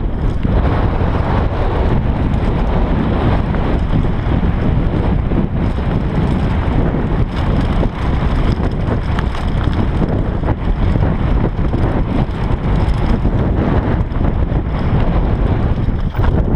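Wind buffeting the onboard GoPro Hero 3 Black's microphone on a fast downhill mountain-bike run, a loud continuous rumble, with the Bergamont Big Air downhill bike's tyres and frame rattling and knocking over loose rocks and gravel.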